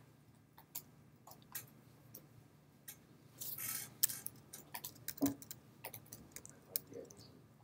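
Faint, scattered clicks of laptop keys being pressed, with a brief rustle about three and a half seconds in.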